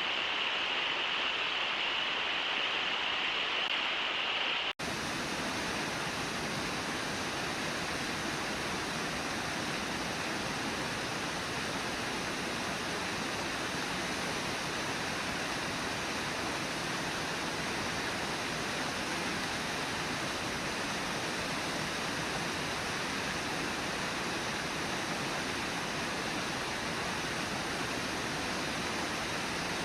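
Steady rush of river water running over shallow rapids. About five seconds in, it cuts out for an instant and resumes with a broader, fuller hiss.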